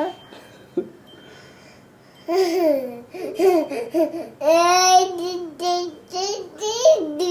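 Baby babbling and laughing: after about two seconds of quiet, a string of short, high-pitched squeals and coos that rise and fall, the longest about four and a half seconds in.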